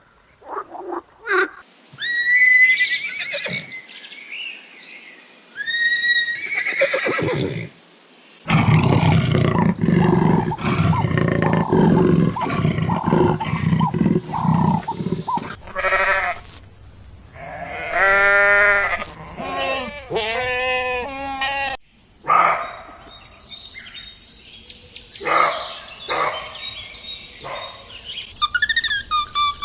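A string of different animal calls, one clip after another with abrupt cuts between them: high repeated calls at first, then a long, low, dense vocalisation, then calls that rise and fall in pitch, and near the end bird chirps.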